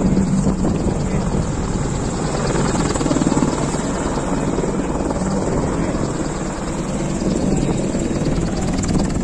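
Helicopter running with a steady, rapid chop from the rotor blades.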